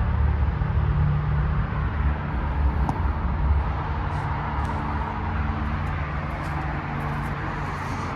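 Outdoor air conditioner condenser unit running: a steady low compressor hum under the rushing air of its fan.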